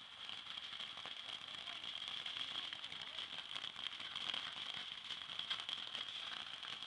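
A backyard firework crackling: a dense run of small rapid pops that grows louder about a second in and keeps going, over a steady high-pitched hum in the background.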